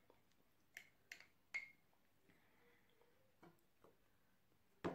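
Metal spoon clinking against the jar as it scoops out coconut oil: three sharp clicks with a short ring about a second in, then two fainter taps near the end.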